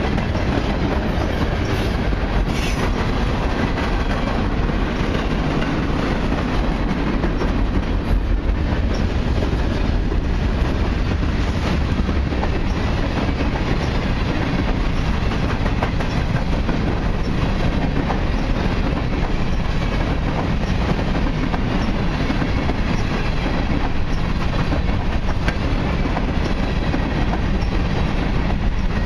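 Freight train cars, autoracks and mixed freight, rolling past on steel wheels: a steady, loud rumble of wheels on rail that does not let up.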